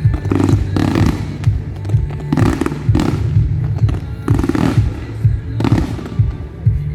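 Fireworks shells bursting in the sky, about seven separate bangs with a crackling tail, over loud music with a pulsing bass beat.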